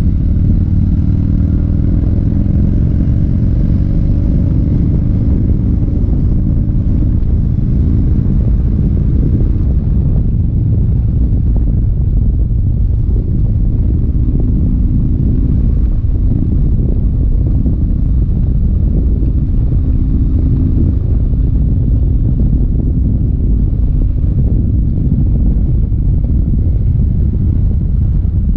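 1985 Harley-Davidson FXRT's V-twin engine running steadily at road speed, heard from the rider's seat under a heavy, steady low rumble of wind and road noise.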